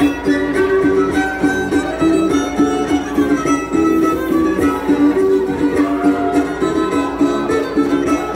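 Lively traditional dance music with a melody of short, quick notes over a steady pulse.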